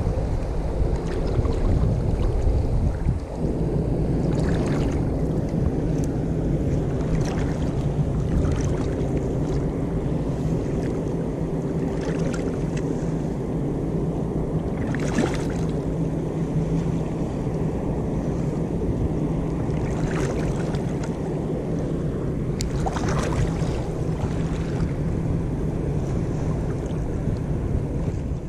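Choppy sea water lapping and sloshing around a wading angler, with wind on the microphone and a steady low hum like a boat's engine. Several short splashes break through it.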